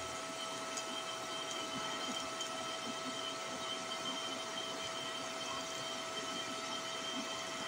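Arc Captain DC TIG 200 welding arc burning steadily during a TIG weld: an even hiss with a steady high whine underneath.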